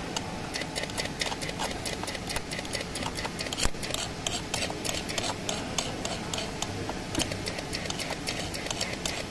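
Electro-spark deposition torch's electrode sparking against a thin stainless steel plate as it lays down a coating: a rapid, irregular crackle of sharp clicks.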